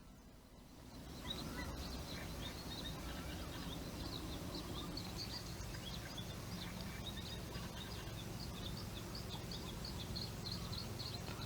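Ambient outdoor field sound that fades in about a second in: many small birds chirping, with short high calls coming several times a second over a steady low rumble of background noise.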